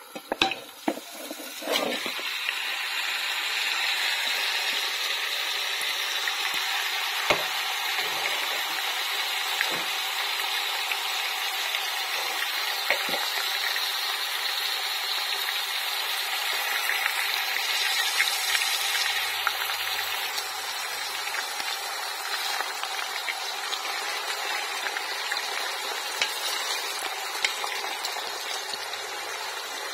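Diced raw meat tipped from a bowl into a pot of hot oil, landing with a few knocks, then sizzling steadily as it fries, with an occasional click.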